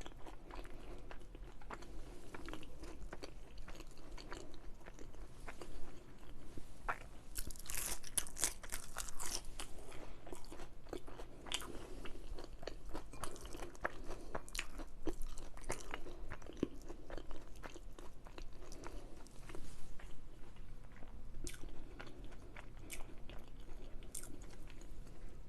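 Close-up chewing and crunching of crispy battered onion rings, with repeated bites and the crackle of the coating between jaws.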